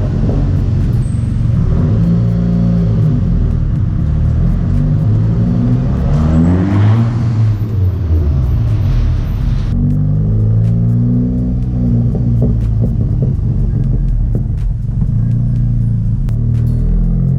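Dodge Caliber SRT-4's turbocharged 2.4-litre four-cylinder running under way, heard at the rear of the car near the exhaust. Its pitch climbs and falls several times as it revs through the gears, with scattered sharp crackles.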